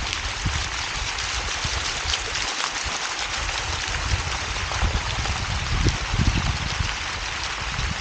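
Steady splashing and trickling of fountain water running down cascading channels and jets, with irregular low rumbles underneath that grow stronger near the end.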